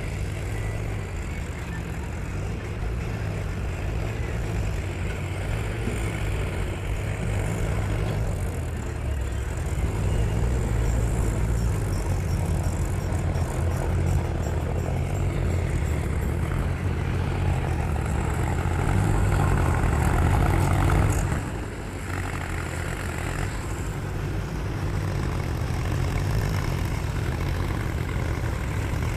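Tractor's diesel engine running under varying load: a steady low drone that grows louder and busier from about ten seconds in, then drops off suddenly a little after twenty seconds.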